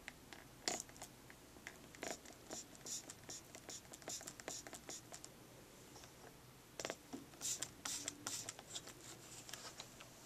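Quick, light scratches and ticks on a hard surface, in two runs of rapid strokes with a short pause between them.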